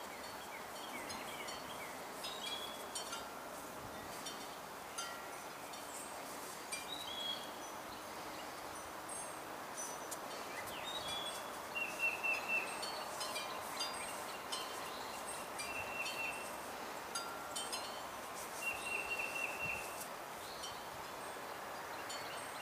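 Scattered short, high chiming notes and bird chirps, including a few quick trills, over a steady background hiss.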